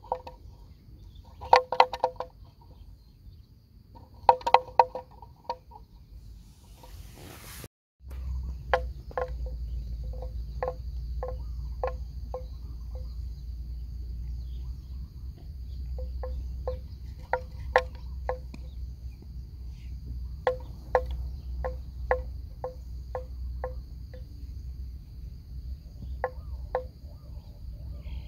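Wooden bell on a water buffalo's neck clonking with a hollow ring, in short runs of knocks as the animal moves and grazes, at about two knocks a second in the later bursts. A steady high insect drone and a low rumble run underneath after a cut about eight seconds in.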